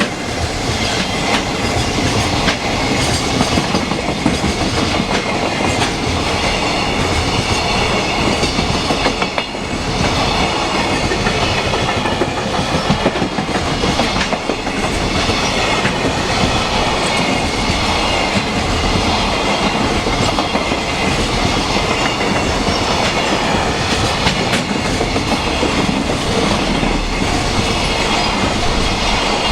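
A fully loaded container freight train hauled by an EF66 electric locomotive passing close by: a loud, steady rumble and rattle of the train running on the rails.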